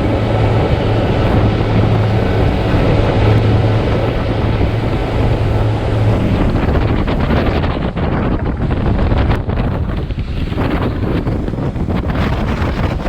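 A boat's engine running with a steady low hum, plainest in the first half, under loud wind rushing and gusting across the microphone.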